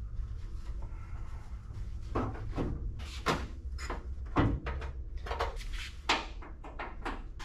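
Irregular short knocks and clanks, about ten of them from about two seconds in, as metal parts and tools are handled while fitting a pickup truck's radiator core support. A steady low hum runs underneath.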